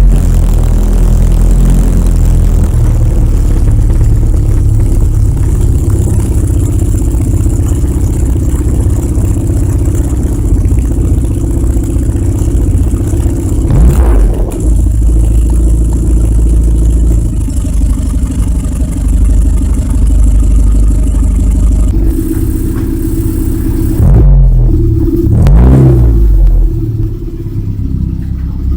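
Classic Morris Mini Traveller's A-series four-cylinder engine running just after starting, a loud low rumble with the revs changing a few times near the end.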